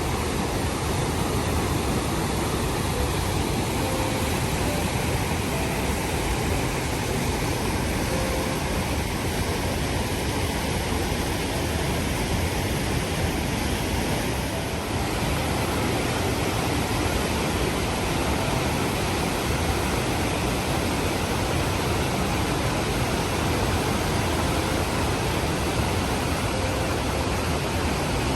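Steady rushing of a wide waterfall, Overlander Falls on the Fraser River, pouring without a break.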